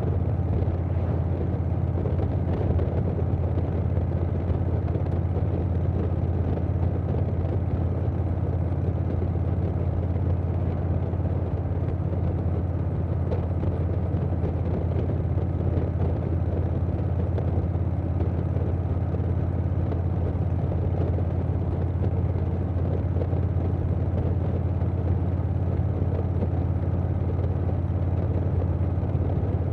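2020 Harley-Davidson Softail Standard's Milwaukee-Eight V-twin running through a Vance & Hines Big Radius 2-into-2 exhaust, cruising at a steady speed with a deep, even drone. Wind rush mixes in with it.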